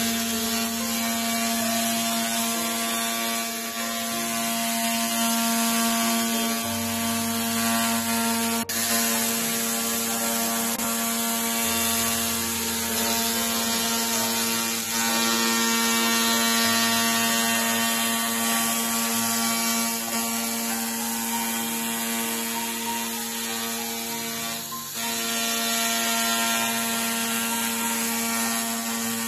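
Handheld fiber laser cleaning head running on metal: a steady buzz with a dense, rapid crackle over it, as the laser strips rust or paint.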